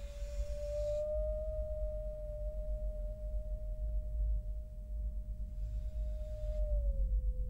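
A single steady pure tone held over a low rumbling drone. It glides slightly lower near the end. Two brief swells of hiss rise and fall, one at the start and one about six seconds in.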